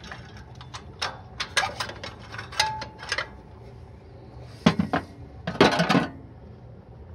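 Clicks and clatter as the air cleaner housing is worked loose and pulled off a Yamaha snowblower's carburetor, then a second burst of sharp clicks as a hand works at the exposed carburetor, which is stuck at the full-throttle position.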